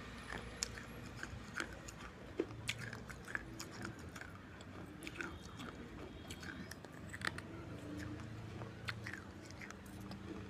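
Close-up biting and chewing on pieces of fired red clay pot: irregular sharp crunches and clicks. The baked clay is very hard.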